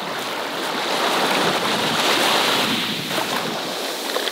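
Small waves washing up onto a sandy beach, the wash swelling a little about halfway through, with wind buffeting the microphone.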